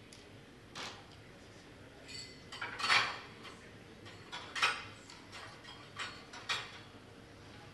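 A few short, scattered clinks and light clatters, like crockery or cutlery, the loudest cluster about three seconds in, over a faint steady room hum.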